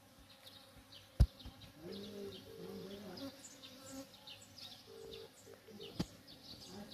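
Honeybees buzzing around flowering palm blossoms, their low hum coming and going as they fly near, with repeated high bird chirps behind it. A sharp knock about a second in and a smaller one near the end.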